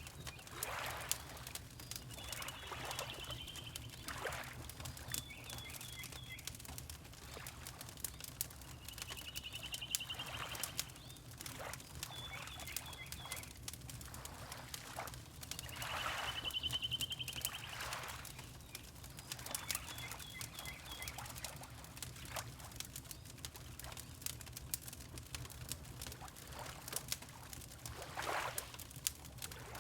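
Fireplace crackling with many small pops over a low steady rumble. Water laps in a few slow swells, and a small bird gives a short high trilled call about six times.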